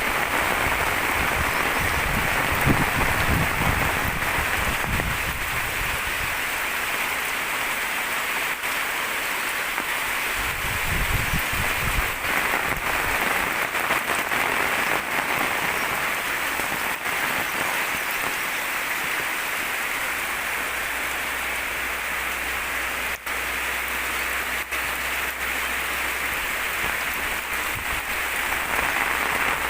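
Rain falling steadily, a dense even hiss, with a few low rumbles in the first seconds and again about eleven seconds in.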